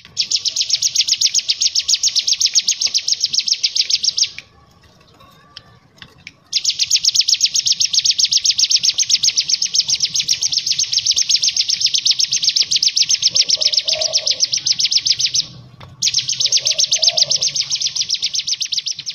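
Cigun (ciblek gunung), a prinia, singing a fast machine-gun trill of high repeated notes, more than ten a second, in long unbroken runs with a short pause about four seconds in and another near the end.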